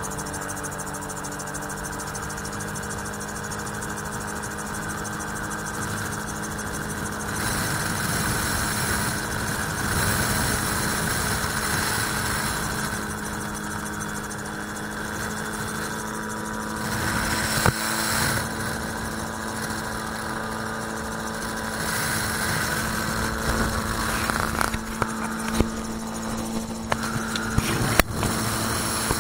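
Magni M16 autogyro's engine droning steadily in flight, heard from the open cockpit with wind rushing past; the wind noise swells and fades at times. A few sharp knocks near the end.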